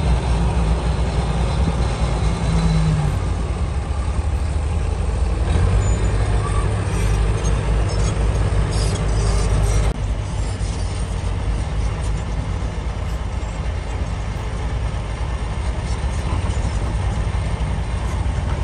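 Diesel engines of heavy earthmoving machines running steadily. First a crawler bulldozer working, then, after an abrupt change about halfway through, an excavator loading a dump truck.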